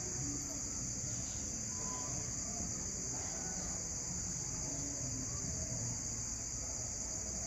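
Steady, high-pitched chorus of insects, unbroken throughout, over a low background rumble.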